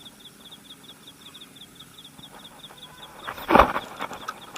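A snakehead striking the lure at the water's surface: one loud, sudden splash about three and a half seconds in.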